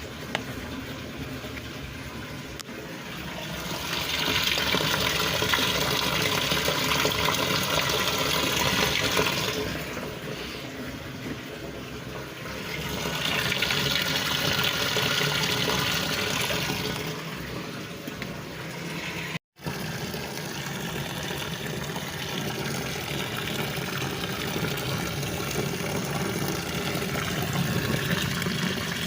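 Water running from a hose into a washing machine tub as it fills, getting louder twice for several seconds.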